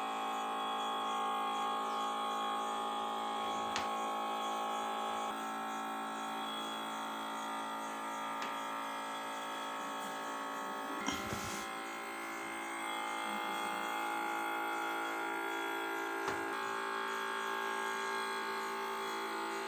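Small battery-powered water pump on a plastic-bottle toy boat, running with a steady electric buzz that shifts slightly in pitch twice. A few light knocks come through it.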